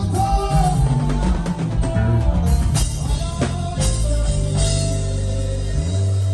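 Live gospel band playing: drum kit, bass guitar and a Yamaha Motif XS8 synthesizer keyboard. The drum hits and the deepest bass fall away about six seconds in, leaving held keyboard chords.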